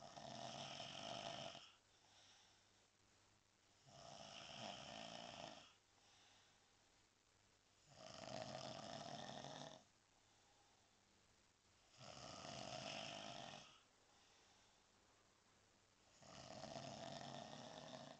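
A sleeping man snoring: five long snores at an even rhythm, about four seconds apart, each lasting about a second and a half, with faint breaths in between.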